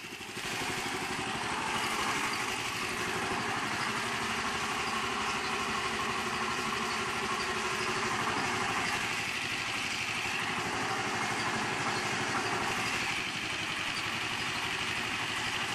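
8 HP Honda engine running steadily under the load of belt-driven alternators, fed gasoline and hydrogen gas from HHO dry cells together.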